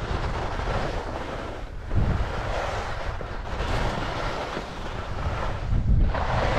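Wind rushing over a GoPro's microphone during a ski descent, a heavy low buffeting, with the hiss of skis sliding over snow that swells and fades. Louder surges come about two seconds in and near the end.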